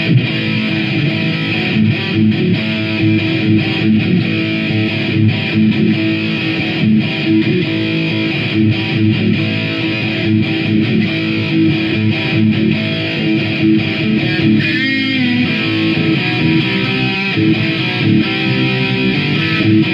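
Electric guitar played through distortion, chugging a loud riff with a steady pulse; about three-quarters of the way through, one high note wavers up and down.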